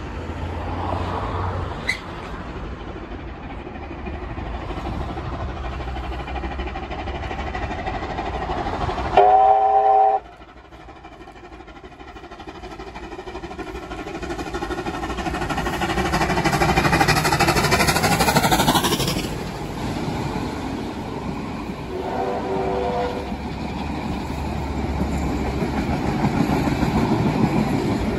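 Steam locomotive 3801 on the move: a loud chime-whistle blast about nine seconds in that cuts off suddenly, then the train's running noise swelling and fading as it passes, and a second, shorter and fainter whistle near the end.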